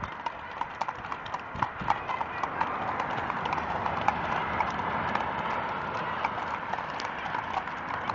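Hooves of several horses walking on a paved road: an irregular, overlapping clip-clop of many hoof strikes, several a second.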